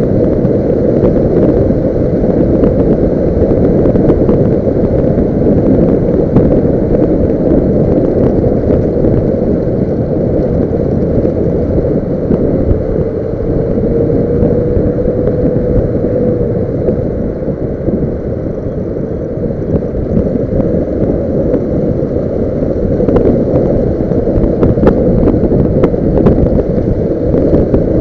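Steady wind rumble buffeting the microphone of a small motorcycle on the move, mixed with the bike's engine and road noise; it eases slightly just past the middle.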